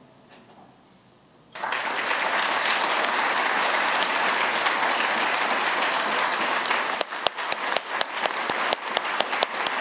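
Audience applauding. It starts abruptly about a second and a half in. In the last few seconds it thins, and single hand claps stand out.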